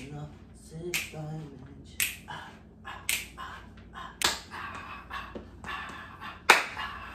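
Fingers snapping to a steady beat, about one sharp snap a second, the loudest near the end.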